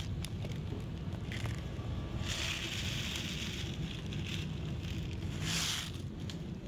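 Steady low rumble with two short bursts of rustling noise, about two and five seconds in.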